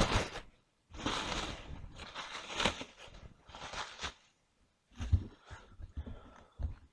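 Auto parts and their packaging being rummaged through in a cardboard box: irregular rustling and crinkling, with a few dull knocks in the second half.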